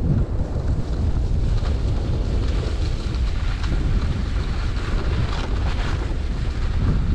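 Wind buffeting the microphone of a camera carried by a skier moving down a groomed run, a steady low rumble, with the hiss of skis sliding on packed snow above it.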